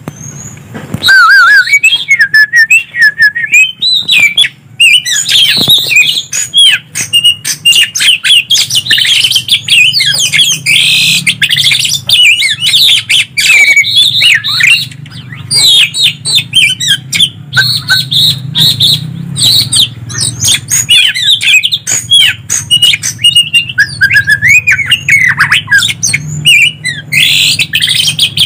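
Greater green leafbird (cucak ijo) and oriental magpie-robin (kacer) song: fast, varied chirps and whistled glides, starting about a second in, over a low steady hum. It is a songbird master recording of the kind played to caged birds to stir them into singing.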